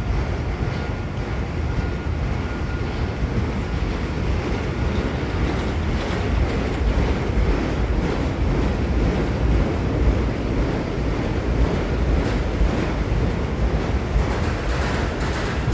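Freight train of autorack cars rolling past: a steady rumble and rush of steel wheels on the rails, with wind on the microphone and a few faint clicks near the end.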